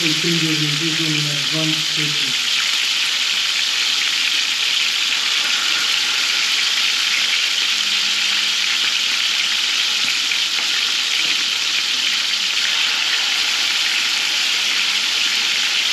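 Marinated boneless chicken frying in a little oil in a pan, a steady sizzle throughout. A faint voice is heard for the first couple of seconds.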